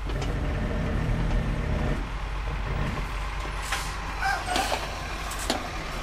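Truck or van engine and road noise heard from inside the cab while driving: a steady low hum, fullest in the first couple of seconds, with a few light clicks or rattles in the second half.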